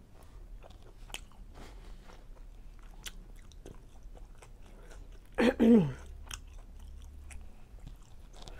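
Close-miked chewing of a chicken fajita in a tortilla: wet mouth smacks and small clicks throughout. About five and a half seconds in, the loudest sound is a short hummed 'mm' that falls in pitch.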